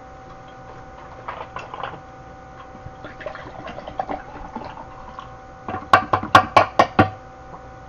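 Liquor being poured from a large green plastic bottle into a glass mug. It glugs in a quick run of about eight sharp gulps near the end.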